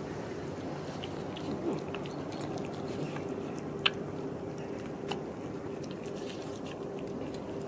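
Two cats eating wet cat food from a plastic tub, with small wet chewing clicks throughout and one sharper click about four seconds in, over a steady low hum.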